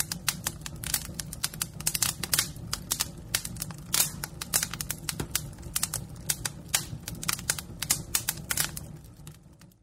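Fire crackling: irregular sharp pops and snaps over a steady low rumble, fading out near the end.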